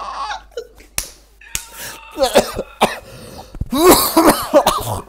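Men laughing and coughing over headset microphones, with a few sharp clicks.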